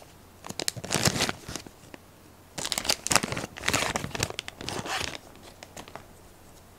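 Clear plastic sleeve crinkling as it is handled and pulled off a folding knife, in two crackly spells: a short one about half a second in and a longer one from about two and a half seconds in.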